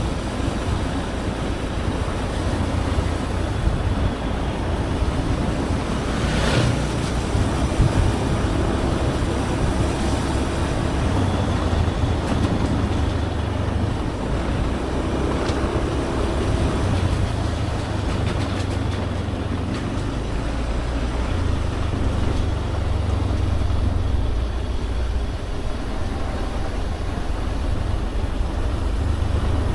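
Motorbike engine running steadily on the move, its note shifting a little with speed, under heavy wind rumble on the microphone.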